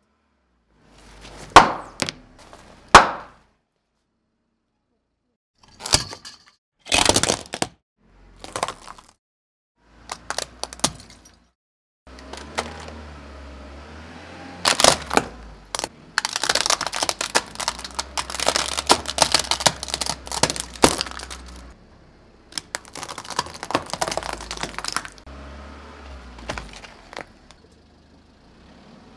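A car tyre rolling over and crushing toys: two loud, sharp pops, then scattered short crunches, then a long run of plastic cracking and snapping as a plastic toy rifle is crushed.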